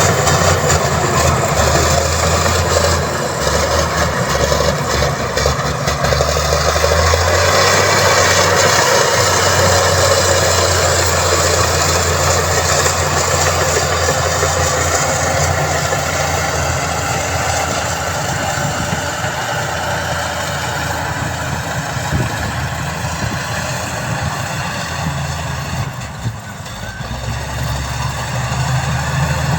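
Heavy construction machine's diesel engine running steadily, easing off briefly near the end before picking up again.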